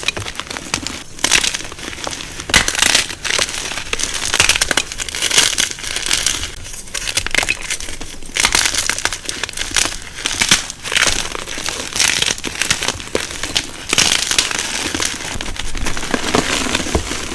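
Gym chalk being crushed and crumbled, dense crunching and crackling that comes in uneven bursts, some louder than others.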